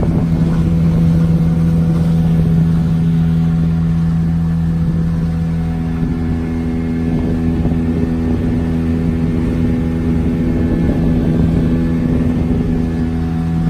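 Outboard motor of a small fibreglass boat running steadily at cruising speed, with wind and water rushing past.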